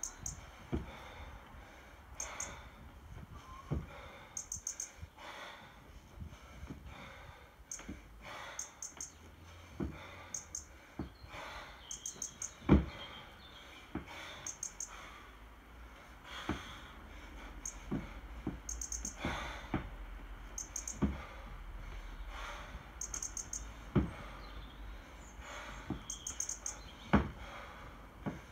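One-arm 24 kg kettlebell jerks at a steady pace: a thud about every three seconds as each rep lands, with sharp exhales between them. A small bird chirps over and over in short quick bursts in the background.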